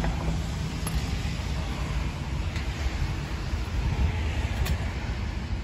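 Steady outdoor rumble of wind and traffic noise in the rain, with a couple of faint clicks about a second in and near the end.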